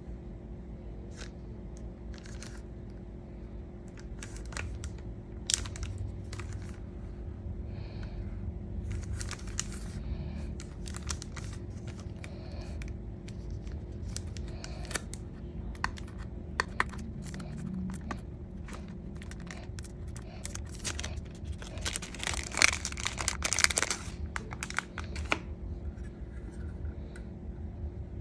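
Plastic packaging and a cardboard box being handled, with crinkling, tearing and scattered sharp clicks as the model's clear display case is slid out and unwrapped. The crinkling is loudest and densest about three-quarters of the way through.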